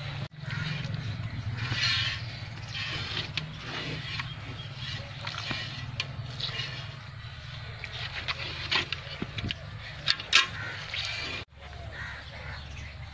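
Cow being milked by hand: streams of milk squirt from the teats into a plastic bucket partly full of milk, in short hissing bursts about every second or so. There is one sharp knock about ten seconds in.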